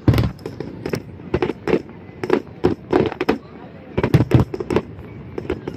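Fireworks going off in quick, irregular bangs and crackles, several a second, with the loudest bangs right at the start and about four seconds in.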